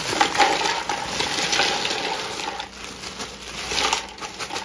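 Ice cubes poured from a plastic bag into a bucket of liquid brine, clattering and splashing in a dense run of clicks, with a second surge near the end.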